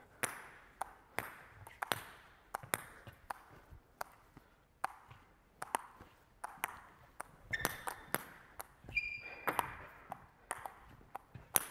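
Table tennis ball clicking off paddles and the table in an unhurried rally, about two hits a second, echoing in a sports hall. Two short squeaks come in about two-thirds of the way through.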